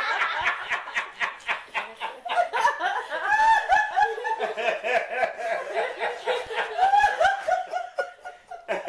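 Laughter right after a joke's punchline: a long, unbroken string of quick, short ha sounds.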